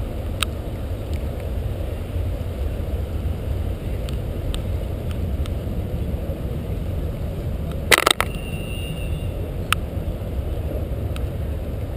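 Steady low rumble of wind buffeting the camera's microphone. A few sharp ticks and one loud knock come about eight seconds in, the knock followed by a brief high ring.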